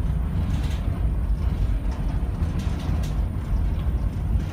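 Towboat's diesel engines running steadily under way, a constant low rumble heard from inside the pilothouse.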